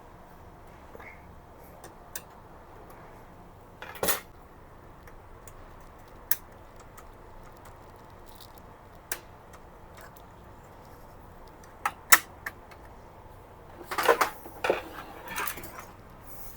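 Hard printer parts being handled during disassembly of a colour laser printer: scattered single clicks and knocks, a sharp click about twelve seconds in, and a short run of clattering near the end.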